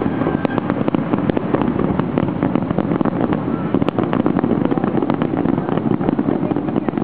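Fireworks crackling: a dense, unbroken stream of small pops and cracks from glittering shells, over a steady rumble.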